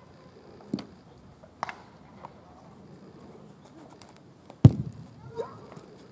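Baseballs smacking into leather gloves during a game of catch: a few sharp pops, the loudest one about four and a half seconds in.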